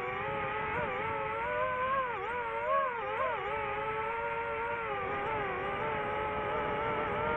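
DJI FPV drone's motors spinning Master Airscrew Ludicrous propellers, a steady whine whose pitch rises and falls with the throttle, with a few quick dips and recoveries about two to three and a half seconds in.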